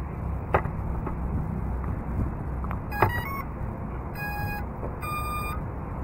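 A quick run of stepped electronic tones about three seconds in, then two longer beeps, a lower one followed by a higher one, over a steady low background of outdoor noise. This fits an FPV quadcopter's ESCs playing their power-up tones through the motors.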